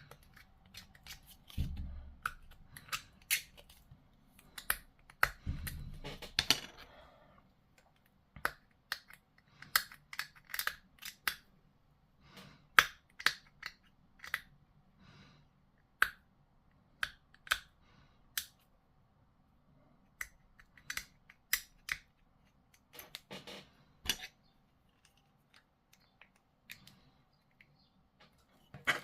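Irregular sharp clicks and snaps of hard plastic model-kit pieces being handled and tidied, with some soft handling rustle in the first few seconds.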